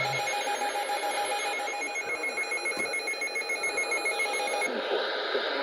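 Weather alert receiver's alarm beeping rapidly, about five high-pitched beeps a second, the sign that it has just decoded an incoming warning; the beeping stops suddenly near the end.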